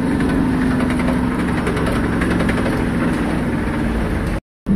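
Tata truck's diesel engine running, heard from inside the cab: a steady low rumble with faint rattles. The sound drops out to silence for a moment near the end.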